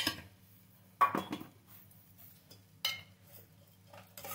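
Metal kitchen utensils clinking and knocking three times, at the start, about a second in and near three seconds, over a faint steady hum.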